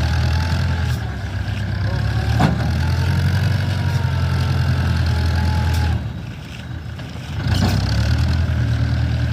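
Heavy diesel engine running steadily under load. It eases off about six seconds in and picks up again a second and a half later, with a faint whine and two sharp knocks.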